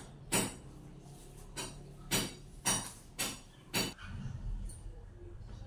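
Curtain rings scraping along a curtain rod as curtains are pulled open, in short rasping slides about every half second. From about four seconds in, these give way to a softer low rumble.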